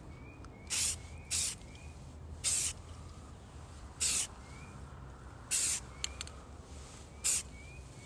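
Aerosol spray-paint can hissing in six short bursts, about one to one and a half seconds apart, as quick strokes of flat Rust-Oleum camouflage paint are laid on.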